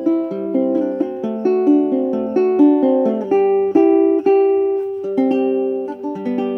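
Bonanza baritone ukulele with cherry back and sides and an aspen top, strung in reentrant tuning with a high D, picked note by note in a flowing arpeggiated passage. The last chord rings on and fades away near the end.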